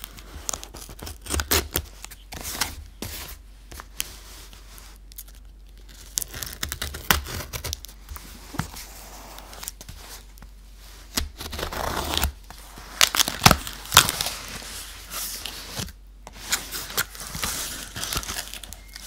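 Packing tape on a cardboard box being slit with a knife blade and torn, in irregular scratchy bursts with a few sharp snaps about two-thirds of the way through. Near the end the cardboard flaps rustle and crinkle as they are pulled open.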